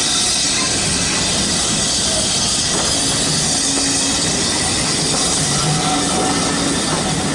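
Steam-hauled passenger carriages rolling past on curved track, a steady rumble of wheels on rail with some wheel squeal.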